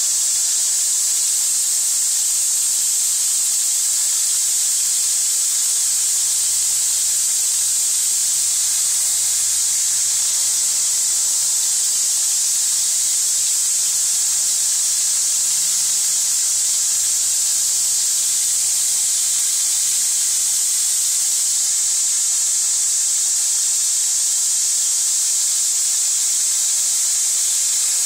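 Water spraying into a plastic tub of water: a steady, even hiss that does not change.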